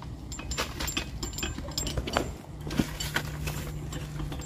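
Metal clicks and clinks of a propeller puller's frame and bolts being handled and seated on a boat propeller. A steady low hum joins a little past halfway.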